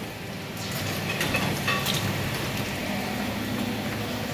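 Steady busy-kitchen background noise, a constant rush with a low hum under it, with a few light clinks of china plates on the steel pass.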